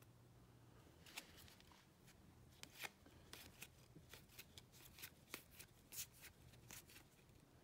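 Faint flicks and clicks of 2021 Playoff football trading cards being slid one at a time off a hand-held stack and onto its back. The clicks come irregularly, a couple a second, starting about a second in.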